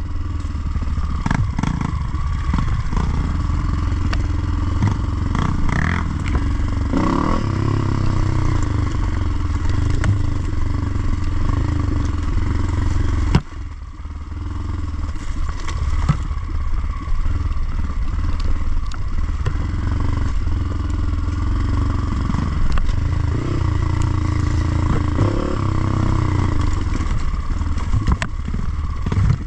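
Dirt bike engine running while riding a trail, the throttle rising and easing, with scattered knocks and rattles. The engine sound drops away suddenly about halfway through and then builds again.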